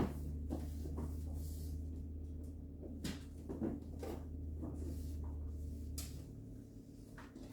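Household items and containers being handled and set down: scattered knocks and clicks, over a low steady hum that stops about six seconds in.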